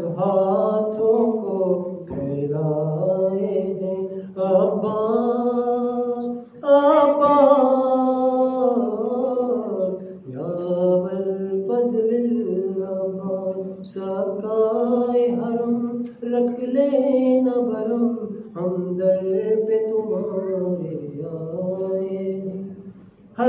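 A man chanting a munajat, a devotional supplication poem, solo and unaccompanied, in long melodic phrases with brief breaths between them.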